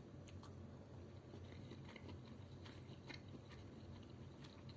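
Near silence with faint, scattered soft clicks of someone quietly chewing a mouthful of chicken curry rice.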